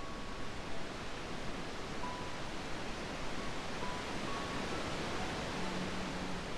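Gentle ocean surf as a steady, even wash, with a few soft held music notes faintly above it.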